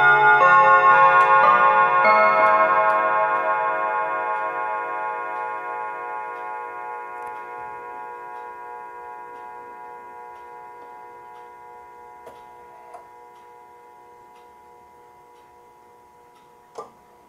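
Junghans mantel clock chiming on its rods: the last few notes strike in the first two seconds or so, then the rods ring on and slowly die away while the movement ticks faintly. A few light clicks come later, the sharpest near the end, as the hands are moved by hand.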